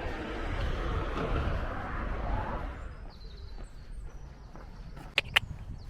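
A passing vehicle's rushing noise fades away over the first three seconds. Faint high chirps follow, then two sharp clicks close together near the end.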